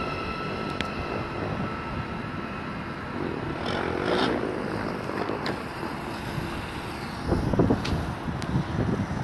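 Thameslink Class 700 electric multiple unit moving away, its whine fading out in the first second and leaving a steady rushing noise. Wind buffets the microphone in gusts near the end.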